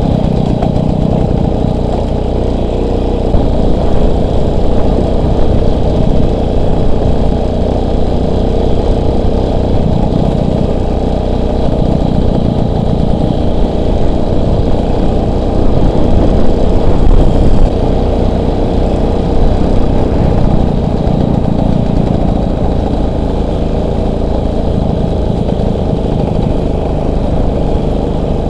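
Motorcycle engine running steadily as the bike is ridden, its loudness rising and falling a little.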